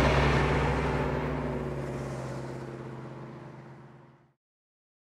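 A low, steady drone with a few held low tones under a broad noise, fading out gradually and cutting off about four seconds in.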